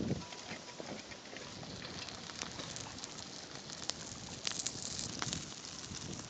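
Open wood campfire crackling, with irregular sharp pops and snaps and a denser cluster of them about four to five seconds in.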